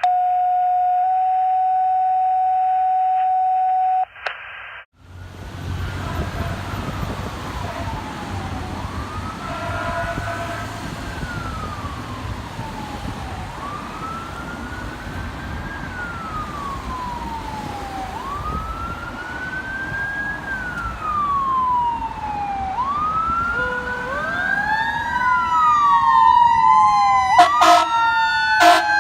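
A steady tone for about four seconds, then a fire engine's siren wailing: each sweep rises quickly and falls more slowly, about every two and a half seconds, over the truck's engine rumble. Near the end a second siren pattern overlaps, it grows louder, and a few sharp air-horn blasts sound.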